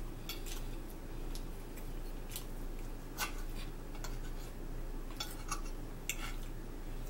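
Metal fork clinking and scraping against a ceramic plate while cutting griddle cakes: a scatter of short, sharp clicks, the loudest about three seconds in and around five to six seconds in, over a steady low hum.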